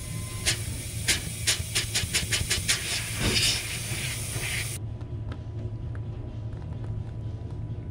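Nitrogen hissing out through the refrigeration tubing with the purge flow turned up. It cuts off suddenly almost five seconds in. A run of sharp clicks comes in the first few seconds.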